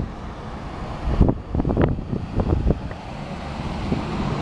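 Wind rumbling on the microphone, with a few short bumps a little over a second in.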